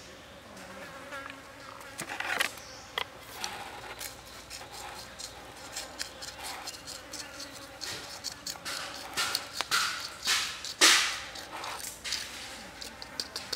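A wooden chopstick scraping and tapping against a leaf as salt and chili seasoning is pushed off it onto a raw squid. It is an irregular run of short clicks and scrapes, with the loudest scrape about eleven seconds in.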